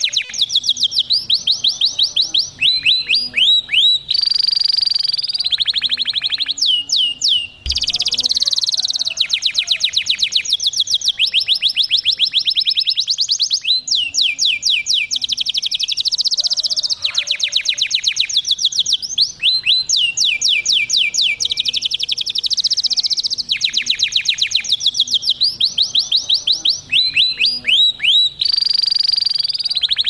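Male domestic canary singing a long, continuous song of rapid trills. Each run of fast repeated, downward-sliding notes gives way to the next every second or two, with one brief break about eight seconds in.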